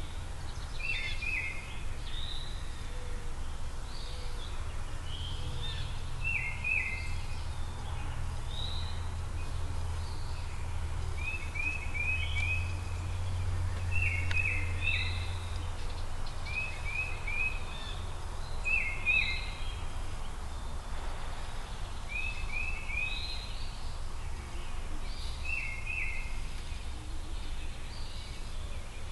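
Birds calling outdoors: short groups of three or four quick high notes repeat every second or two, with occasional single higher slurred notes, over a steady low rumble.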